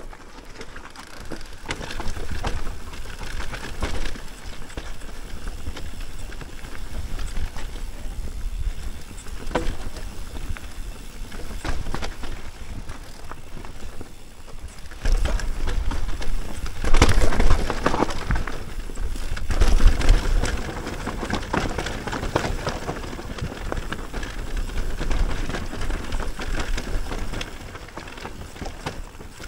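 Mountain bike riding down a rough dirt trail: tyres rolling over dirt and rocks, the bike rattling and clattering over bumps, under a steady low rumble. The clatter gets louder and busier from about halfway through to two-thirds of the way through.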